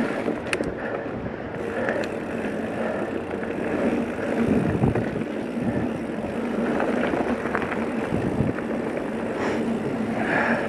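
Mountain bike riding fast down dirt singletrack: a steady rush of wind on the camera's microphone over the tyres rolling on packed dirt, with a few short knocks and rattles from the bike.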